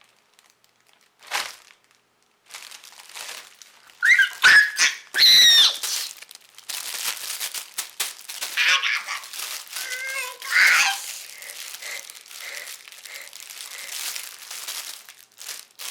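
Plastic packaging crinkling and rustling as a squishy toy's wrapper is handled and opened, broken by several short, high-pitched squeals about four to six seconds in and again near the middle.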